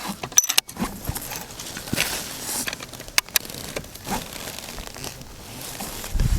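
Rustling and handling noise with several sharp clicks, the loudest about half a second in and two close together a little after three seconds, as a target rifle is readied for a shot.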